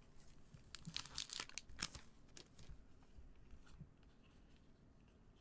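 Foil wrapper of a 2021 Upper Deck Marvel Metal Universe trading-card pack being torn open: a short crackly rip about a second in, then softer crinkling of the wrapper.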